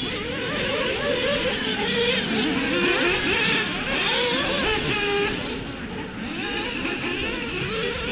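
Several 1/8-scale RC off-road buggies racing together, their motors revving up and easing off in overlapping, rising and falling high pitches.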